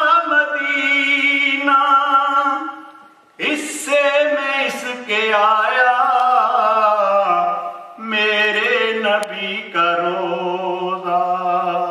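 A man singing an Urdu naat solo, without accompaniment, into a microphone: long held notes with a wavering, ornamented pitch, in three phrases broken by two short pauses for breath.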